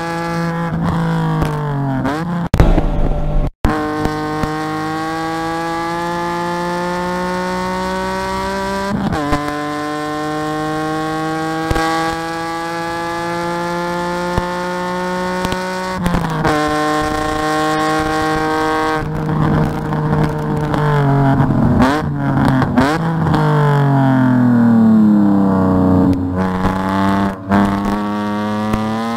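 BMW E46's engine heard from inside the stripped cabin, pulling hard with its pitch climbing steadily through the gears and upshifts about a second in, around nine seconds and around sixteen seconds. From about nineteen seconds it drops through several downshifts with short throttle blips, then accelerates again near the end. There is a brief low thump about two and a half seconds in.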